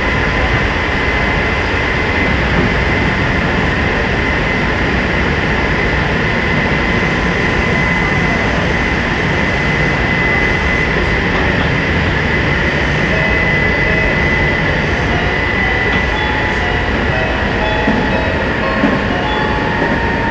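Electric commuter train running at speed, heard from inside the carriage: a steady rumble of wheels on track with a constant high whine over it.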